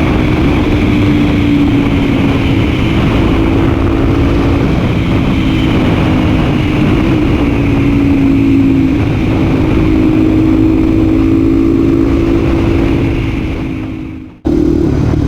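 Honda Tornado's 250 cc single-cylinder engine running at steady high revs, a held drone with slight rises and falls in pitch over loud wind rush. It fades out near the end and then cuts abruptly back in.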